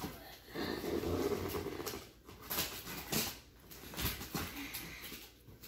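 Scissors cutting and scraping through packing tape along the top of a cardboard box, in uneven strokes.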